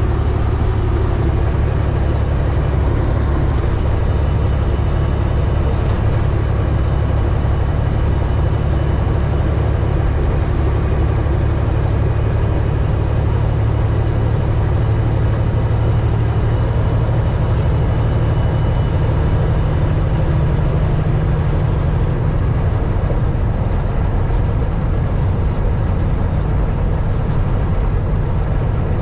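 Semi-truck's diesel engine running steadily at highway speed, heard from inside the cab as an even, deep drone.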